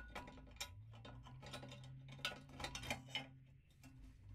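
Light metallic clicks and clinks of small metal pieces being handled on a drill-press bench, irregular and close together, with a faint low hum from about a second in until near the end.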